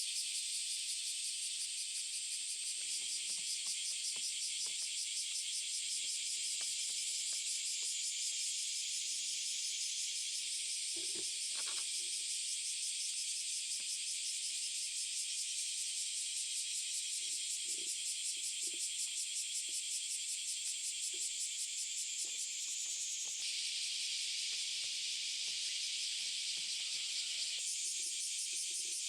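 Steady, high-pitched insect chorus with a fast pulsing trill, with faint light clicks and knocks underneath, a small cluster of them about eleven seconds in.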